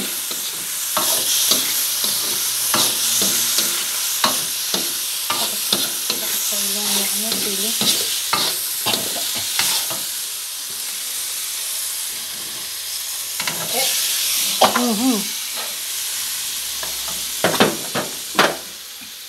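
Tofu strips, pork and leeks sizzling in a hot wok while a metal spatula stirs and scrapes them, clacking against the pan again and again, with a few louder knocks near the end.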